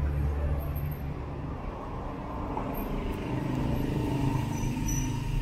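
City street traffic: motor vehicle engines running with a steady low hum.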